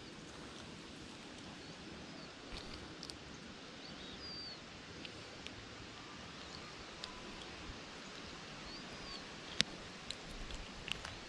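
Quiet outdoor background with a low steady hiss, a few faint high bird chirps, and scattered small clicks, the sharpest near the end.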